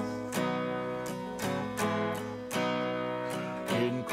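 Acoustic guitar strummed solo: a short instrumental passage between sung verses of a worship song, with chords struck about every half second and left ringing.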